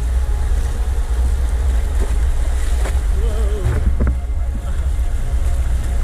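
Wind buffeting an action camera's microphone over rushing river rapids, a steady low rumble with water hiss. A few brief knocks come in the middle, and there is a short wavering voice a little after three seconds in.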